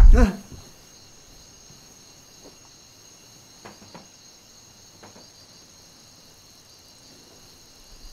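Crickets chirping steadily and faintly in a night ambience. At the very start a loud low rumble cuts off abruptly with a quick falling sweep, and a few faint soft knocks come through the middle.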